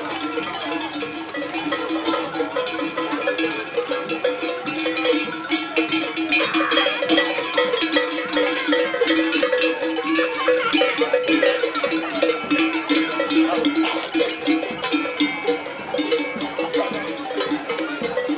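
Many livestock bells on a passing flock of sheep and pack donkeys, clanking and ringing continuously in a dense jangle.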